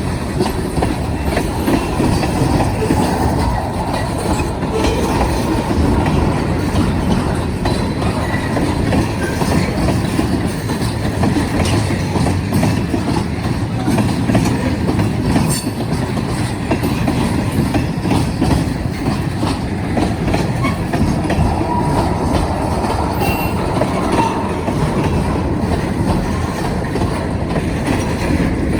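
Freight cars of a long BNSF manifest train rolling past in a steady loud rumble, steel wheels knocking over the rail joints.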